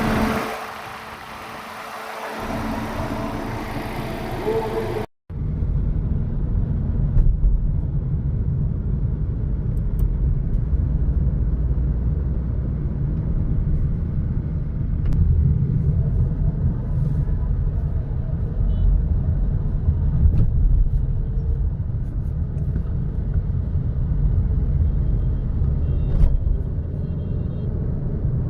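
An MG HS's engine and gearbox running, with a steady tone over the mechanical noise for about five seconds. After a sudden cut comes a steady low rumble. The noise is put down to a bad transmission or flywheel bearing.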